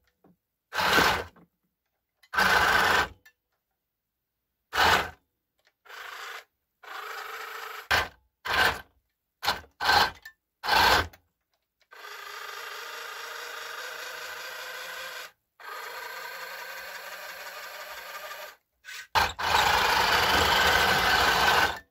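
Electric drive motors and plastic gearboxes of a HengLong 1:16 M26 Pershing RC tank whirring as it drives on a wooden bench, with the tracks rattling. It starts and stops in a string of short bursts, then runs longer and more quietly for a few seconds, and loudest near the end.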